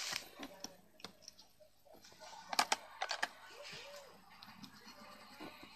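Faint clicks and taps of a pen and a paper notebook being handled, with a cluster of sharper clicks about two and a half to three seconds in.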